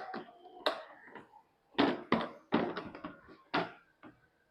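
Handling of a portable pressure washer's hard case and its nozzles: a string of short clicks and knocks, about eight in all, as parts are opened, picked up and set down.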